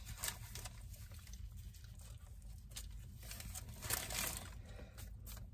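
Faint crinkling of a fast-food paper wrapper and soft eating noises, scattered crackles over a low steady hum.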